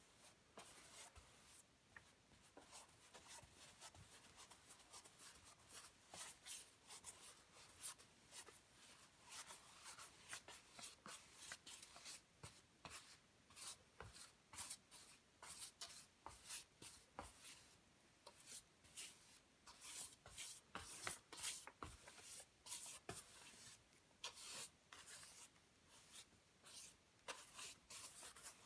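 Flat paintbrush spreading gesso tinted with burnt sienna acrylic across a stretched canvas to prime it: a steady run of faint, short, scratchy brush strokes, several a second.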